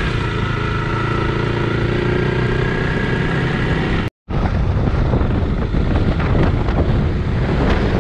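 Honda CRF300 Rally's single-cylinder four-stroke engine running under way, with wind rushing over the microphone; the engine note rises slightly over the first few seconds. The sound cuts out abruptly for a moment about four seconds in, then engine and wind carry on with scattered short knocks from the rough gravel track.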